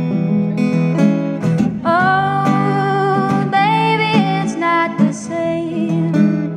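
A woman singing a blues song over a strummed acoustic guitar, with a long held note about two seconds in.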